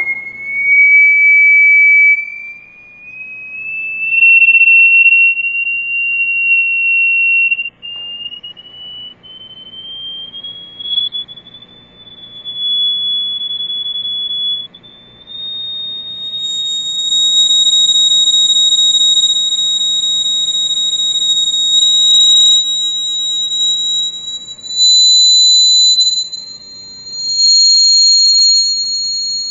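A single pure, high-pitched electronic tone that climbs slowly and unevenly in pitch, swelling and fading in loudness as it goes. A second, higher tone joins about halfway through and stays alongside it.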